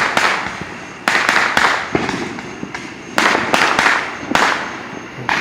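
Fireworks exploding in quick succession, about seven or eight sharp bangs over five seconds, each dying away over a second or so.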